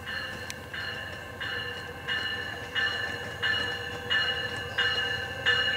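Bell on an arriving passenger train's cab car ringing steadily, about three strikes every two seconds, over the low rumble of the train.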